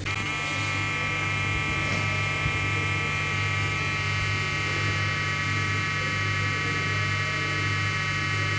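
Fire alarm horn sounding continuously, a steady unbroken electric buzz.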